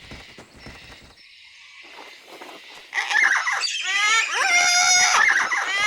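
Cartoon cockatoo calls: a quick, dense run of chirps and squawks that starts about halfway through, after a few quiet seconds.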